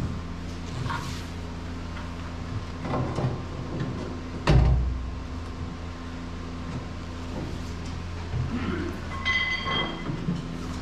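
Knocks and clunks in a bare aluminum jet boat hull as a jet-ski engine is shifted into place on its mounts, with one heavy low thump about four and a half seconds in, over a steady electrical hum.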